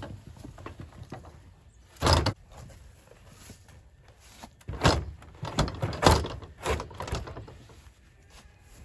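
Split firewood logs thunking and knocking as they are handled: one heavy thunk about two seconds in, then a run of several knocks between about five and seven seconds in.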